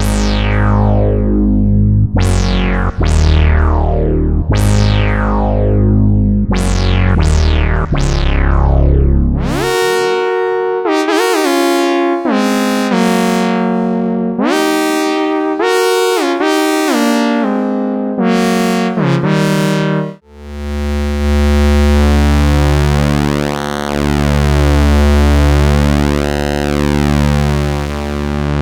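Moog Source analog monophonic synthesizer playing. First come deep bass notes about every two seconds, each opening bright and closing quickly into a low hum. Then a lead line follows with pitch glides between notes, and after a brief break near the end, a sustained thick low tone whose brightness slowly shifts.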